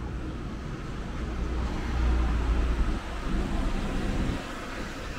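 A car passing close by on a city street: a low rumble that swells to its loudest about two seconds in and dies away about four seconds in.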